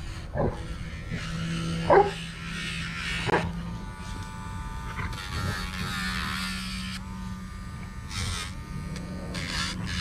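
Handheld rotary nail grinder running in on-and-off stretches as it files a dog's nails. A dog barks three times in the first few seconds, loudest about two seconds in.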